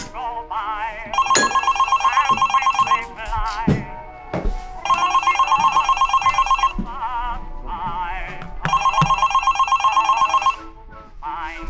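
Smartphone ringing three times, each ring a fast trill lasting about two seconds. A song with a singer plays underneath.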